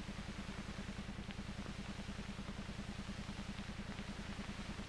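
Steady low hum pulsing about ten times a second, the background noise of an old film soundtrack between lines of narration.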